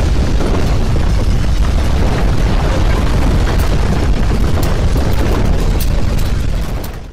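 Landslide rumbling: a loud, continuous low roar, heaviest in the bass, that cuts in abruptly and dies away near the end.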